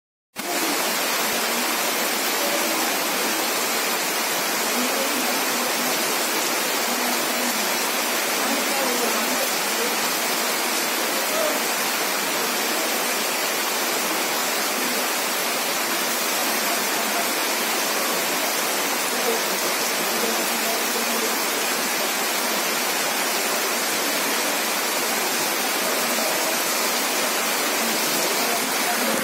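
Heavy rain pouring down in a steady, even hiss, cutting in after a brief silence at the very start.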